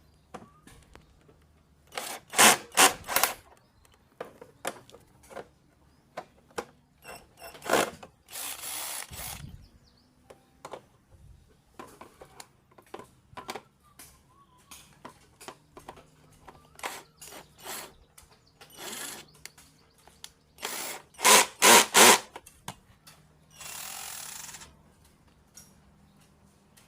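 Cordless drill being handled, with scattered clicks and knocks and loud clusters of knocks twice. The drill runs briefly twice, about a second each time.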